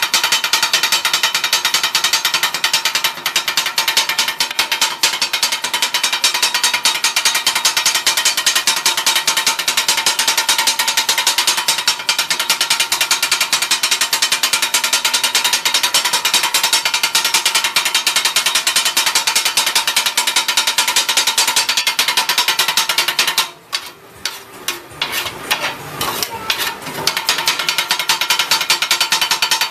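Rapid metal-on-metal clatter of a flat steel blade chopping noodles and vegetables on a flat iron griddle, a fast continuous rattle of strikes. About three quarters of the way through the chopping breaks off into a few scattered strikes for some seconds, then resumes at full pace.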